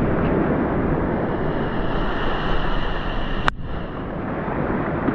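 Wind buffeting the microphone in a loud, rumbling roar over surf breaking and washing up the beach, with one sharp click about three and a half seconds in.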